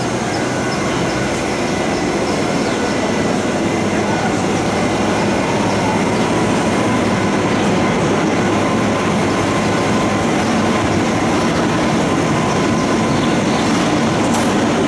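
Steady din of a big railway station's train shed, with trains standing at the platforms running. A faint steady whine comes in a few seconds in and rises slightly in pitch.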